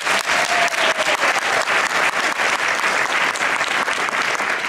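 Audience applauding: many people clapping at once, a steady dense clatter of hands.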